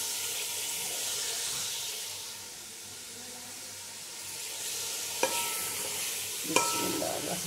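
Chopped bottle gourd sizzling in hot oil in a steel pot, with a steady hiss. A metal spoon clinks against the pot twice near the end, each clink ringing briefly.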